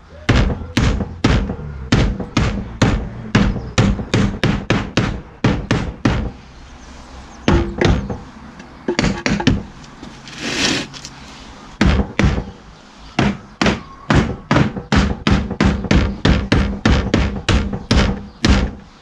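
Hammer driving loose nails back into a wooden shed's cladding, in quick runs of sharp knocks about two to three a second, with a short break about halfway through. The nails had worked their way out of the shed in the heat.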